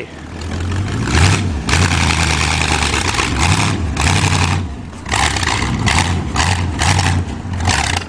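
Car engine running with repeated hard revs in short bursts, more frequent in the second half.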